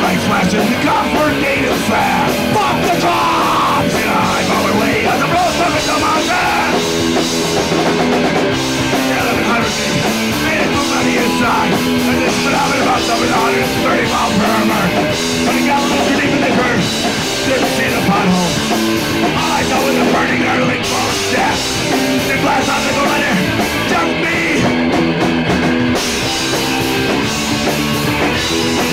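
Punk rock band playing live: electric guitars and drum kit at a loud, steady volume.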